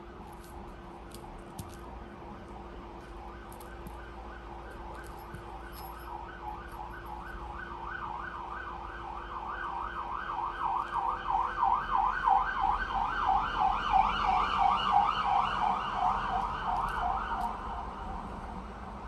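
An emergency vehicle siren warbling fast, rising and falling in pitch about three or four times a second; it grows louder about eight seconds in and fades near the end.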